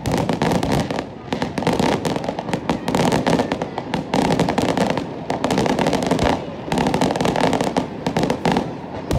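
Aerial fireworks display going off: a dense, near-continuous run of bangs and crackling from bursting shells, easing briefly a few times.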